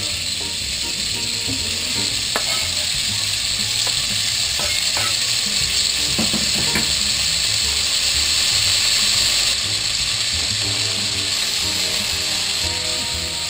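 Beef strips sizzling as they fry in hot olive oil in a Dutch oven, the sizzle swelling louder toward the middle, with a few knocks as pieces drop in and a spatula stirs them.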